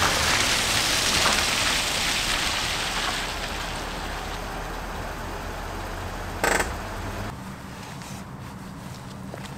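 A car driving across a wet car park, its engine and tyre noise fading as it moves away. A short click comes about six and a half seconds in, and the sound drops to quiet outdoor ambience about a second later.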